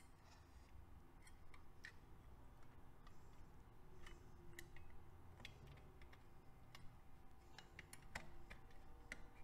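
Faint, irregular small metallic clicks and ticks from hands fitting the spring-loaded cam chain tensioner against the aluminium crankcase, with more of them in the second half.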